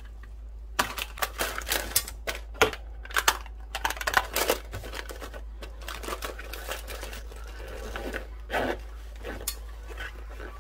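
Clicks, knocks and fabric rustling as a plastic food container and a cutlery case are packed into a padded fabric lunch bag. The handling is busiest in the first half and thins out later.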